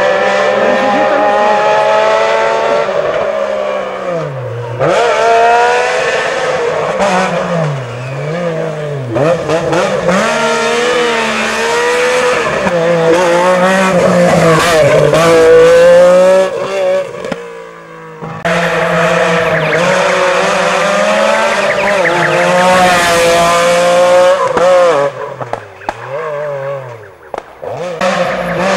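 MG Metro 6R4 Group B rally car's 3.0-litre V6 engine driven hard, its pitch climbing steeply through the gears and dropping sharply on the overrun and downshifts, over and over. The sound breaks off briefly a little past halfway, and near the end drops to a quieter engine that climbs again as the car comes back into earshot.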